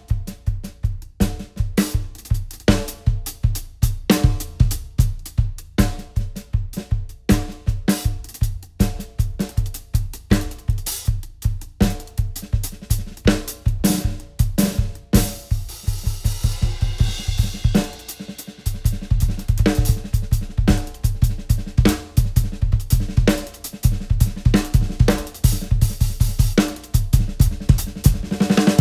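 Acoustic drum kit played solo: a fast, dense run of snare, tom and bass drum hits with hi-hat and cymbals, and a stretch of ringing cymbal wash about halfway through.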